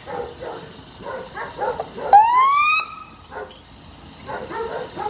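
Dogs barking in short, irregular bursts, with one loud call about two seconds in that rises in pitch for under a second.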